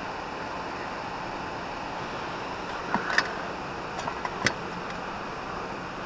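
Steady rushing noise of the river outdoors, broken by a few sharp clicks and knocks about halfway through: handling on the boat.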